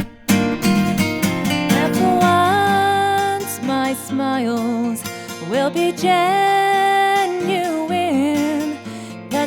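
Song with strummed acoustic guitar for the first two seconds or so, then long held melody notes with vibrato and sliding pitch over a quieter accompaniment.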